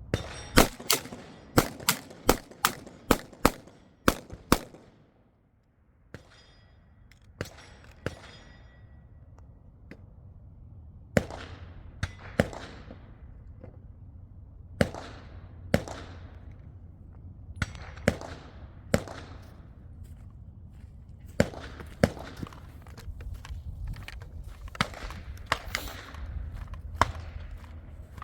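Gunshots fired in strings: about ten rapid shots in the first four and a half seconds, then, after a short pause, pairs and single shots spaced roughly a second apart.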